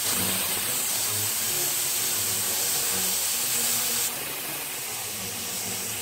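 Plasma cutter cutting steel plate: a steady hiss from the torch, a little quieter after about four seconds.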